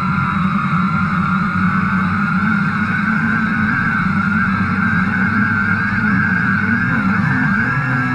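DJI Phantom quadcopter's electric motors and propellers buzzing in flight, heard from the camera on board. The pitch wavers up and down as the motors adjust.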